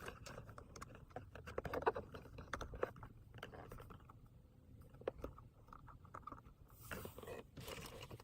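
Irregular small scrapes, crinkles and taps of hands wrapping gauze over double-sided tape on a shift knob, with a couple of longer rustles near the end.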